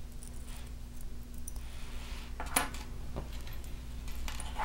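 Copper ball chain and metal pendant jingling and clicking lightly as the pendant is strung onto the chain: a few short metallic clicks, the sharpest about two and a half seconds in and another at the very end.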